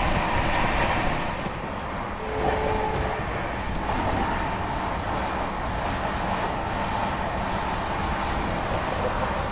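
Rajdhani Express passenger coach running at about 128 km/h: a steady rumble and rattle of the wheels on the rails, with another train passing close alongside.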